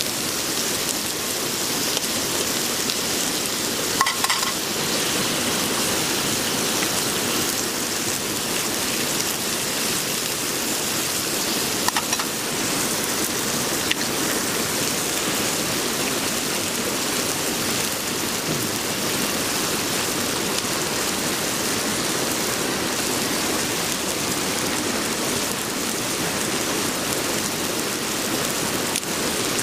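Chunks of bacon, then eggs, frying in a cast-iron skillet over a campfire: a steady sizzle, with a few sharp metal clinks about four seconds in and again around twelve and fourteen seconds.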